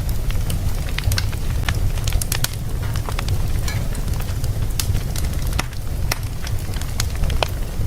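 Wood fire in a fireplace crackling, with irregular sharp pops over a steady low rumble of the burning fire.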